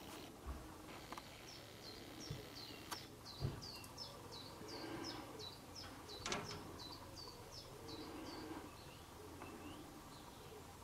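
A small songbird singing: a run of quick, short, high notes, each sliding down in pitch, about two or three a second for several seconds before it stops. A few soft knocks sound in between.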